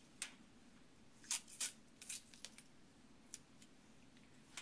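Medical tape being prepped into strips by hand: a handful of short, crisp snips and rips, the loudest two a little over a second in.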